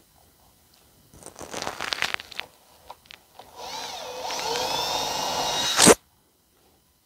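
A cordless drill with a 3/32-inch bit drills a pilot hole into wood through the hole at the end of a metal ruler. The first sound, about a second in, is a rough cutting noise. Then the motor runs steadily with a whine that rises in pitch, and it cuts off suddenly near the end.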